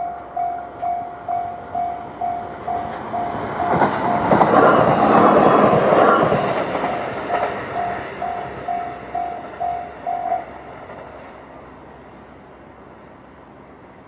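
Japanese level-crossing electronic warning bell in the JR standard tone, ringing a little over twice a second, while a Shinano Railway SR1-series electric train passes, loudest about five seconds in. The bell stops about ten seconds in.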